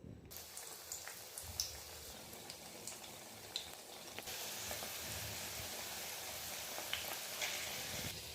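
Batter-coated stuffed green chillies (mirchi bajji) deep-frying in hot oil: a steady sizzle with scattered pops and crackles, getting louder about four seconds in.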